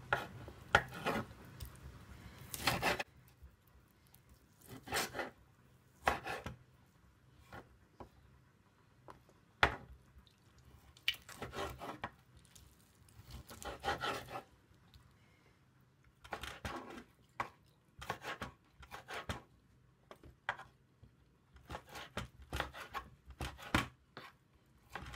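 Kitchen knife cutting cooked cow foot and beef into small pieces on a wooden chopping board: irregular slicing strokes and sharp knocks of the blade on the board.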